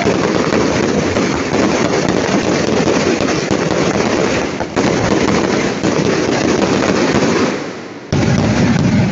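Aerial fireworks display in a dense, continuous barrage of shell bursts and crackling. It dips briefly near the end, then comes back abruptly.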